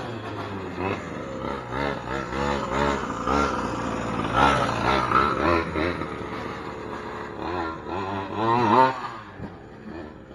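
Gas two-stroke engine of a 1/5-scale Primal RC Raminator monster truck revving up and down over and over as it is driven, the pitch swinging with each throttle blip, with a strong rev up and back down near the end.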